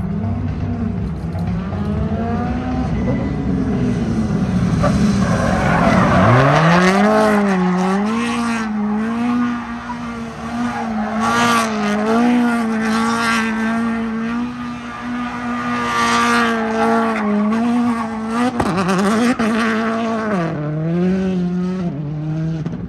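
Car engine revved hard about six seconds in and held at high revs, wavering, while the tyres spin and squeal in a smoky burnout or donut; the revs fall near the end.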